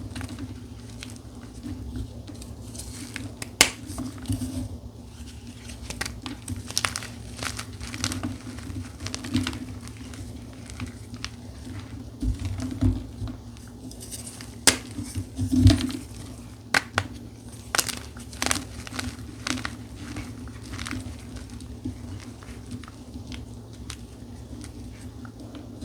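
Blocks of dyed gym chalk with a charcoal crunchy topping being crushed, crumbling and crunching in irregular crackles with a few sharp snaps, the loudest a little over halfway through.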